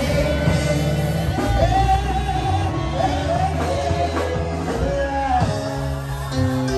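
Church congregation singing a praise song over instrumental accompaniment with a steady, prominent bass line.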